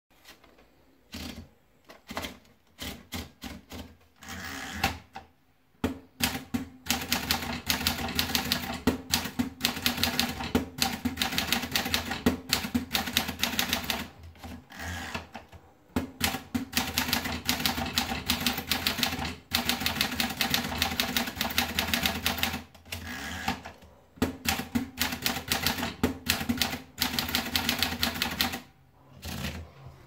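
Smith-Corona Clipper manual portable typewriter: a few scattered clicks as the paper is wound in, then rapid, steady key strikes in three runs, with two short breaks between the three typed lines.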